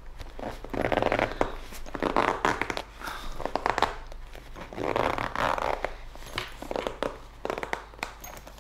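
Zipper of a padded BUBM headphone case being drawn shut around its rim in about six short rasping pulls.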